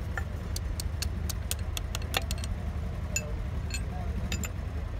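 Light metallic clicks and clinks as metal gearbox parts and tools are handled: a quick run of about ten in the first half, then a few scattered ones. A steady low rumble runs underneath.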